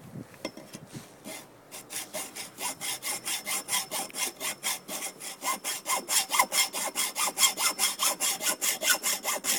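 Hacksaw blade cutting through a metal pole in fast, even back-and-forth strokes, about four or five a second, starting about two seconds in and getting louder.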